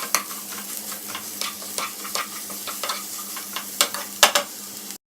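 Ground chicken frying in oil in a pan, sizzling steadily while a spoon stirs it with repeated clicks and scrapes against the pan. There are two louder knocks near the end, then the sound cuts off suddenly.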